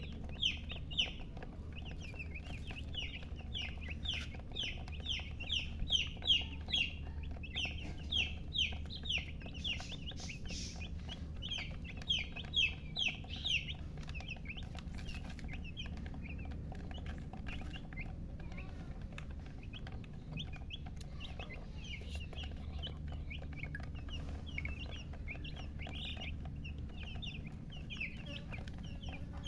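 Baby chicks peeping continuously: many short, high chirps a second, each falling in pitch, over a low steady hum.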